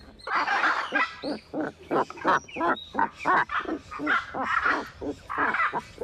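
Hyacinth macaw calling from inside its tree-hollow nest: a steady run of short calls, about three a second.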